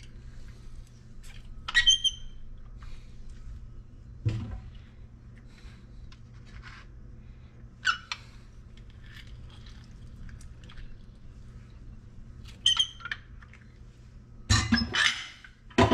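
Handheld lemon squeezer pressing lemon halves: a few short squeaks and soft clicks as it is squeezed, with a louder clatter near the end, over a low steady hum.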